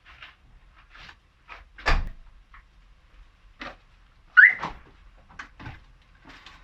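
A door being worked, with scattered knocks and clunks, one loud bang about two seconds in, and a short rising squeak a little past the middle.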